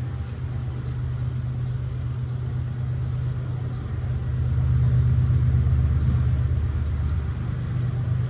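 A low, steady mechanical rumble that grows louder about four and a half seconds in and eases off again near the end.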